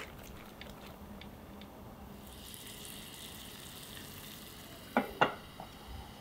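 A whisk lightly ticking against a glass bowl of egg whites, then a steady faint hiss of water heating in a saucepan. Two sharp clinks come about five seconds in.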